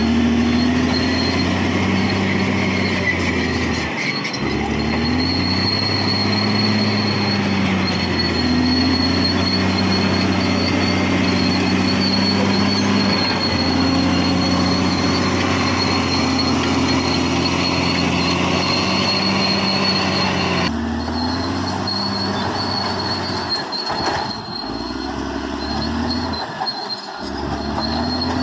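Caterpillar D6R XL crawler bulldozer working: the diesel engine runs loud, its pitch rising and falling every few seconds as the load comes on and off, over a steady high squeal and clatter from the steel tracks.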